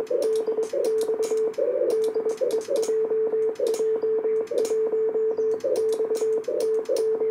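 Morse code from a Kenwood TS-890 transceiver's CW sidetone: a steady tone keyed in dots and dashes as a call goes out for a Reverse Beacon Network test. Sharp clicks run along with the keying, and short bursts of hissy band noise come through the narrow CW filter in the gaps.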